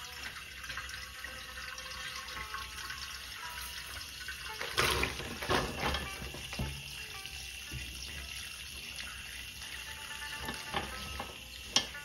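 Tap water running into a basin, with a louder splash and rustle of soybean pods about five seconds in as a plastic colander of them is tipped into the water. A single sharp knock near the end.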